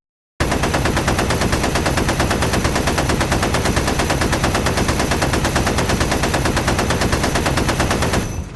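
A light automatic weapon firing one long, unbroken burst of rapid, evenly spaced shots for about eight seconds, then cutting off with a short echoing tail.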